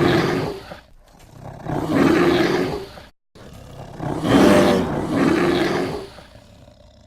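Carnotaurus dinosaur roar sound effect: a run of roars. The first fades out within the first second, a second follows, and a longer third one tails away near the end.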